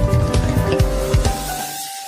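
Smartphone ringtone: a tune with a drum beat and bass whose drums and bass drop out about one and a half seconds in, leaving a sparse melody of clear single notes.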